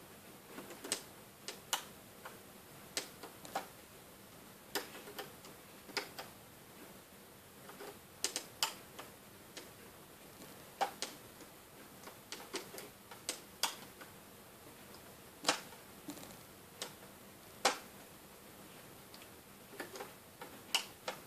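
Irregular small clicks and taps of a hook tool and stretched rubber bands against the plastic pegs of a Wonder Loom as bands are lifted and looped, coming in uneven clusters with short pauses over a faint hiss.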